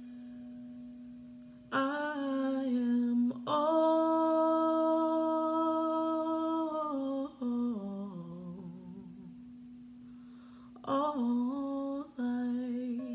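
A woman's voice singing long, sustained notes over a steady drone tone from a soft new-age instrumental. About two seconds in the voice enters, holds one note for some three seconds, then slides down with vibrato, and a shorter phrase follows near the end.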